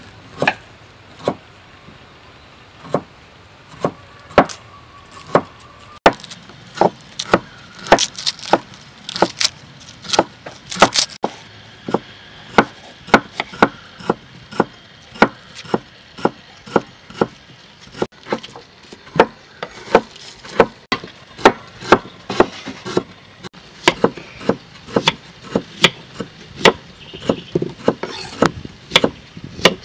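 Repeated sharp knocks on wood while food is being prepared. They come sparsely at first, then about two a second from around six seconds in.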